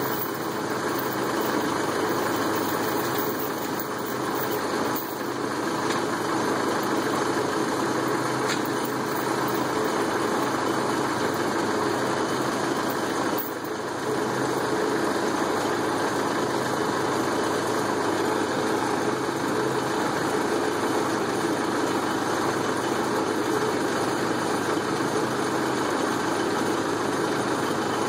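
The diesel engine of a 1971 Mercedes L508D tow truck idling steadily.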